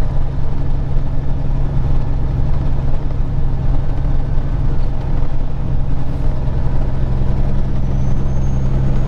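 Peterbilt 379 semi truck cruising at road speed: a steady low drone of engine and road noise.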